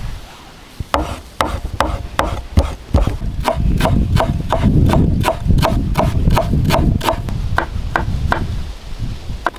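A knife chopping on a wooden board in a steady run of sharp strokes, about three a second, starting about a second in.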